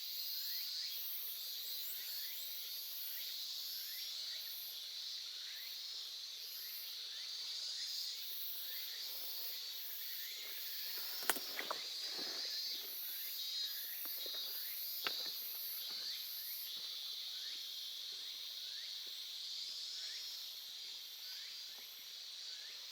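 Small stream babbling and gurgling, with insects calling steadily in a high band and a faster pulsing insect call above it; two sharp clicks about halfway through.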